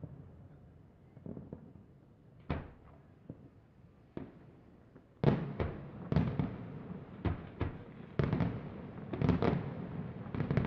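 Aerial firework shells bursting: a few scattered bangs, then from about five seconds in a quick run of loud bangs one after another.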